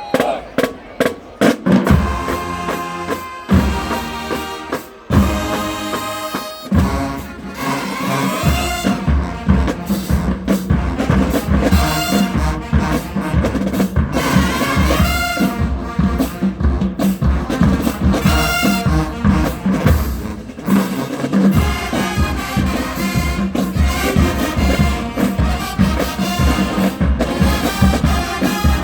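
College marching band playing: brass (trumpets and trombones) over a steady beat of marching drums, opening with a few sharp accented hits.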